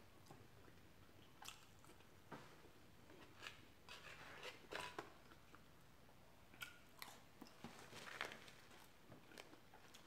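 A person chewing a mouthful of french fries close to the microphone: faint chewing with small crunches and mouth clicks, scattered about once a second.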